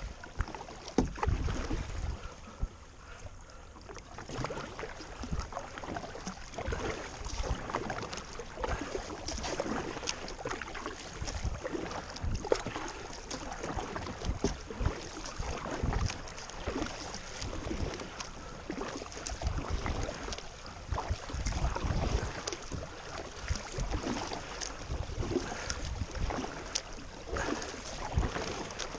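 Kayak paddling on a river: paddle blades dipping and splashing, with running water and occasional knocks against the boat, and wind rumbling on the microphone now and then.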